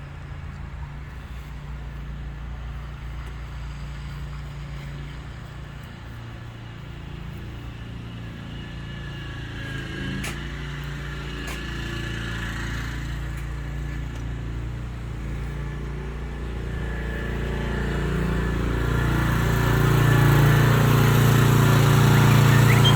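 An engine running steadily, growing louder over the last several seconds.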